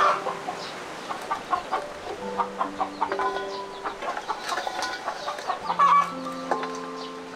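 Background music of long held notes, with many short, sharp sounds over it, the loudest about six seconds in.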